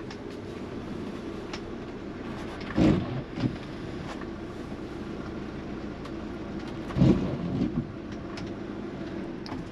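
Fiat Ducato diesel engine idling steadily, heard from inside the motorhome's cab as it creeps forward at low speed. Two brief low thumps stand out, about three seconds in and about seven seconds in.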